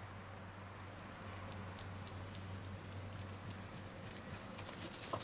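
A dog running across a lawn, with light, quick high clicks and jingles from its movement that come sparsely at first and grow denser near the end.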